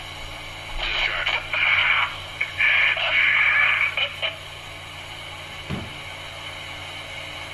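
Radio broadcast audio: two stretches of hissing static over a steady low hum, followed by a brief low falling sound.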